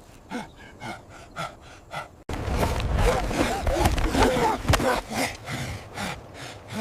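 Human gasps and breathy vocal sounds. About two seconds in, an abrupt cut brings in louder, denser sound with a low rumble under the voices.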